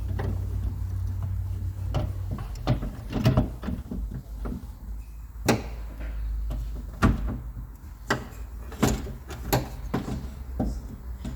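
Scattered clicks and knocks of parts and tools being worked inside a car door during reassembly of the window regulator and motor, with a steady low hum during the first couple of seconds.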